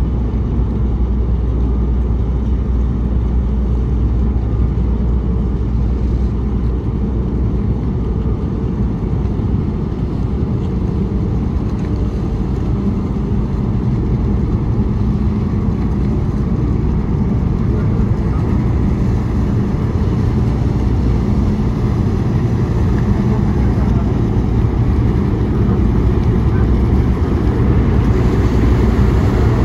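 Car ferry's engines and propellers running as it manoeuvres to dock, a steady low rumble that grows slightly louder near the end as the ship backs in, propeller wash churning the water.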